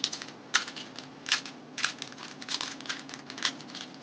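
Plastic parts of a transforming robot toy clicking and scraping as it is folded by hand into its police-car vehicle mode: irregular small clicks, a few each second.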